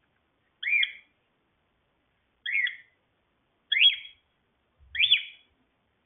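Cockatiel calling: four short calls, each rising and then falling in pitch, spaced about one to two seconds apart.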